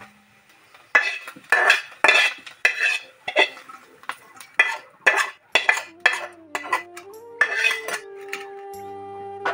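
Metal utensils scraping and clanking against a black kadai: about a dozen sharp, irregular clatters.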